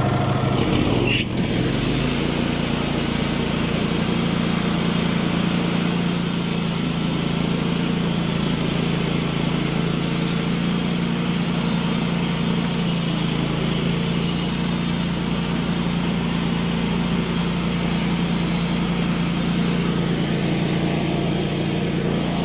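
Wood-Mizer LT15 portable band sawmill running steadily under load, its engine droning while the band blade cuts through a hard maple log.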